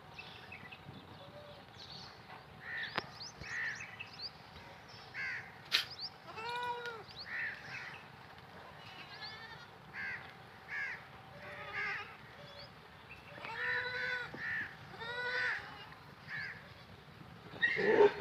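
Goats bleating with many short calls in between. Two longer, wavering bleats come about 7 and 14 seconds in, and a loud call just before the end.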